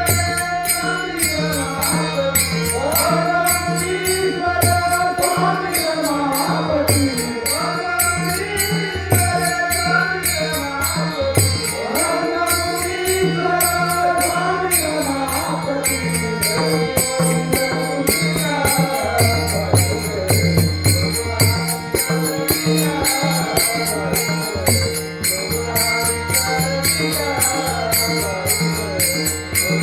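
A Varkari devotional bhajan with a male voice singing long, ornamented, gliding lines. Steady quick clashes of small hand cymbals (taal) and a low sustained drone accompany it.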